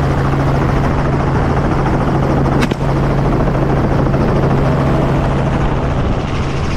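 Robinson R44 helicopter running steadily in flight, heard from its open doorway, with one rifle shot about two and a half seconds in.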